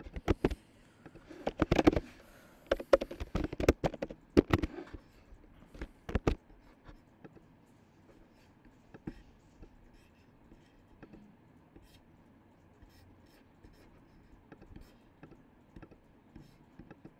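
Typing on a computer keyboard: quick clusters of key clicks for about six seconds, then only a few faint, scattered clicks.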